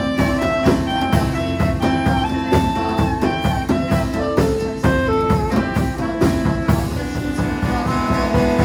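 Small jazz-pop band playing an instrumental passage: drum kit keeping a steady beat under a moving melody line, with saxophone, keyboard and electric guitar.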